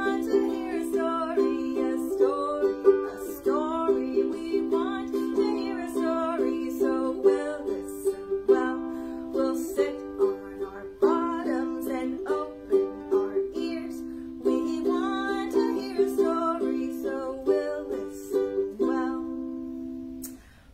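A woman singing a song while strumming chords on a ukulele; the music stops shortly before the end.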